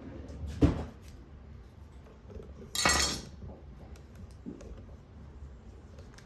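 Kitchen handling sounds of dishes and utensils: a dull thump under a second in, then a short, loud clatter about three seconds in.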